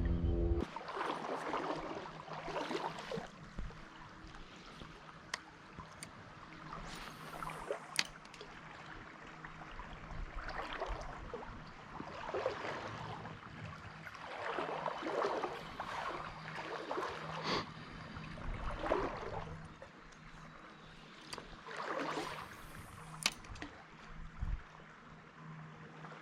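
Water sloshing and swishing in a shallow trout stream, in repeated swells a second or two apart, as from wading, with a few sharp clicks between.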